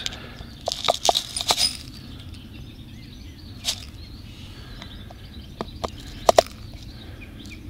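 Scattered light clicks and clinks from handling an open metal grinder, a clear plastic tube and rock salt crystals. The loudest is a pair of short ringing clinks about six seconds in.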